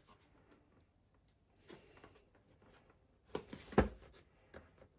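Handling noises: faint rustling and small taps, then a quick run of clicks ending in one sharp knock a little under four seconds in.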